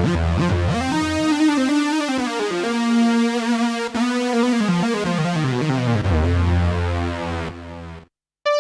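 Korg Kross 2 synthesizer preset being played: sustained chords over a bass line, with notes sliding in pitch. It cuts off about eight seconds in, and after a short silence a different patch of short keyboard notes begins.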